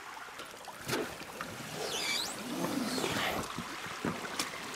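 Inflatable kayak being dragged over a beaver dam: its hull scrapes and squeaks against the sticks, with a knock about a second in, over the steady sound of water running through the dam.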